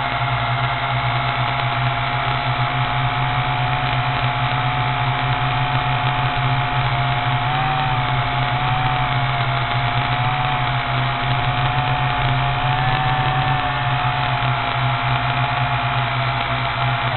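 Model aircraft's motor and propeller running steadily in flight, heard close up from on board: a low hum under a high whine that wavers slightly in pitch.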